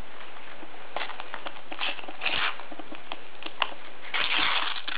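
Foil sticker packet being torn open by hand: scattered crackles and crinkles of the wrapper, with a longer tearing rustle near the end.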